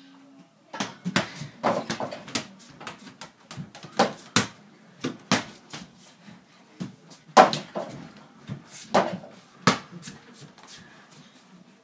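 Small mini-basketballs bouncing and knocking in a small room: an irregular run of sharp thuds, sometimes several a second, loudest around four and seven and a half seconds in.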